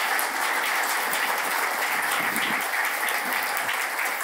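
Audience applauding steadily as a speaker is welcomed on stage.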